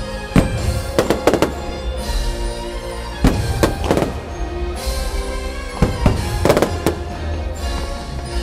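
Aerial firework shells bursting in a string of sharp bangs, several in quick clusters, over the fireworks show's music.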